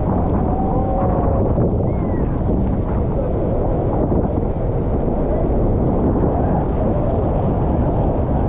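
Strong wind buffeting the microphone over a steady rush of the waterfall and the tour boat, with faint passenger voices under it.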